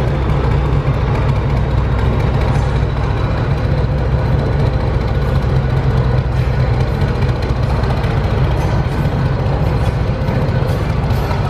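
Diesel locomotive engine running with a steady, loud low drone, the engine of a locomotive that was sounding strange and losing power.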